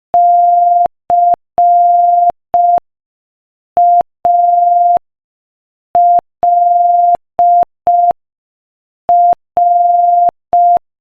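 Morse code practice tone at 5 words per minute: one steady pitched beep keyed in dots and dashes. It spells out C-A-L-L, with about a second's pause between letters.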